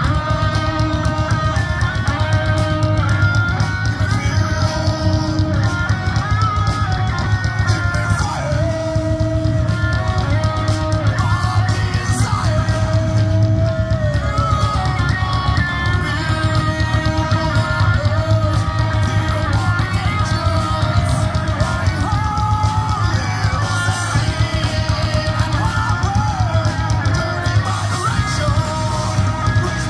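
Rock band playing live through a PA, heard from within the crowd: electric guitar carrying a stepped melodic line over bass and a drum kit.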